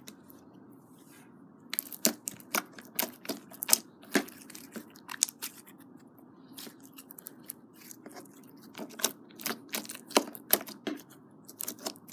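Glitter slime being squeezed and pressed by hand, making an irregular run of sharp wet clicks and pops. They start about two seconds in, thin out midway, then come thick again.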